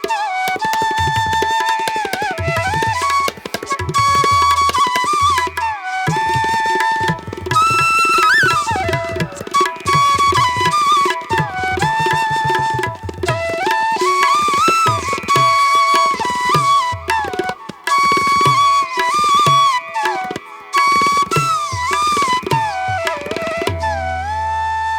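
Background music: an Indian-style instrumental with a flute melody bending between notes over a quick tabla rhythm, ending on a held flute note.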